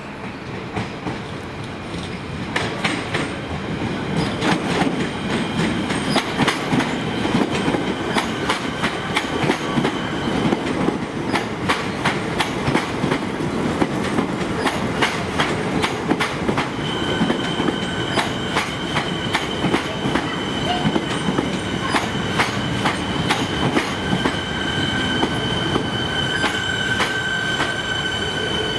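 Siemens electric suburban train rolling into a platform, its wheels clicking over rail joints, louder as it draws near. From about halfway a steady high-pitched squeal sets in as it slows.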